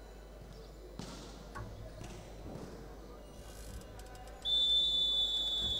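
Volleyball referee's whistle: one long, steady, high blast that starts suddenly about four and a half seconds in. Before it there is a low hall background with a few faint knocks.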